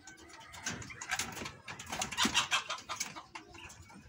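Pekin bantam chickens clucking and calling, in a string of short sounds that is busiest in the middle.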